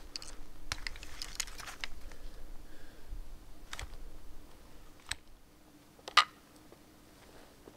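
Gear being handled: a hunting backpack hoisted on and a muzzleloader rifle taken up, giving rustling and a quick run of clicks in the first two seconds, then single clicks, the sharpest about six seconds in.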